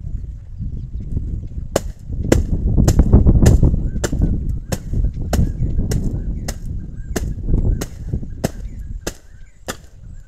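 A stick beating dried green gram (mung bean) pods on a cloth to thresh the beans out: sharp whacks, about two a second from about two seconds in. A low rumble runs under them, loudest around three seconds in.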